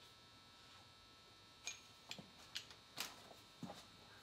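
Faint footsteps and clicks of a long torque wrench being carried, about six irregular sharp taps starting just under two seconds in, over a faint steady hum.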